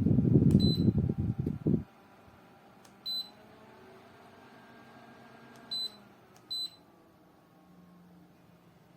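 Portable pedestal fan running, its airflow buffeting the microphone with a choppy rumble that cuts off suddenly about two seconds in. Four short, high electronic beeps from the fan's controls follow as buttons are pressed.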